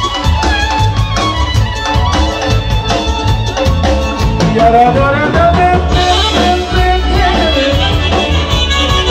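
Live folk band playing an instrumental passage of a Macedonian circle-dance (oro) tune: a wandering lead melody over a steady drum beat, the band's sound growing fuller about six seconds in.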